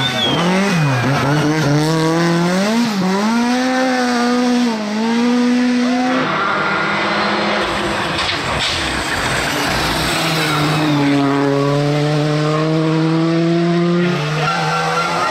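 Rally car engines at full throttle on special stages, in passes cut together. First a Lada rally car's engine note swings up and down with throttle lifts and gear changes. After a cut, another rally car's engine climbs steadily in pitch as it accelerates.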